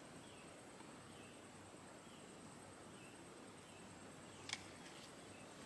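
Near silence: faint outdoor background with a soft high chirp repeating about once a second and a faint steady high hiss, broken by one small click about four and a half seconds in.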